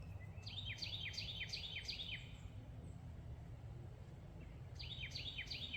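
A songbird singing a run of about seven quick, falling whistled notes, about three a second, then starting another run near the end, over a faint steady low rumble.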